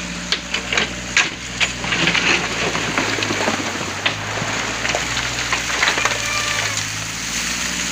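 A backhoe's diesel engine running steadily. Over it come a quick string of sharp knocks in the first two seconds, then a gritty crunching of sand and stones, as the bucket works the sand and gravel.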